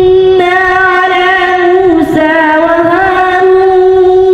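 A boy reciting the Quran in melodic tilawat style into a handheld microphone, drawing out long held notes with a dip and rise in pitch about two seconds in.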